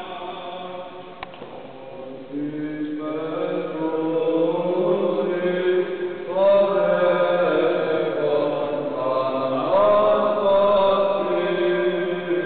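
Voices chanting a slow liturgical chant on long held notes, swelling louder a couple of seconds in and again twice more.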